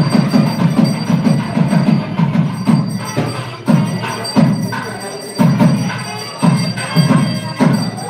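Drums beating in a fast, dense rhythm that breaks up into separate strokes about a second apart from about three seconds in. A steady, bright ringing runs over the drumming.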